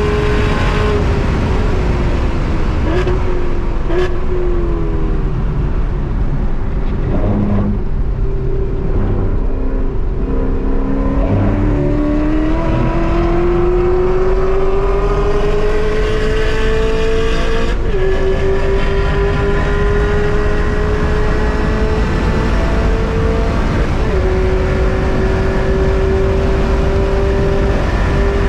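2018 Chevrolet Camaro ZL1 1LE's supercharged 6.2-litre V8, heard from inside the cabin on track. The engine note falls in steps as the car brakes and downshifts from high speed. It then climbs steadily as the car accelerates, dropping at two upshifts in the second half.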